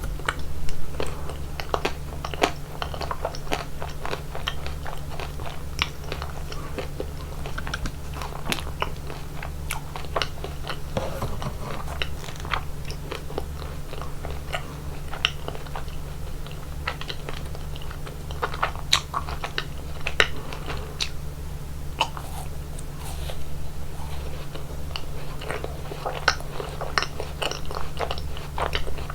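Close-miked eating of chocolate ice cream: crunchy bites and wet chewing, with many small crackles throughout, over a steady low hum.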